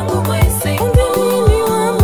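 African gospel song with a steady dance beat: a kick drum about twice a second over a bass line, and a long held melody note that comes in about a second in.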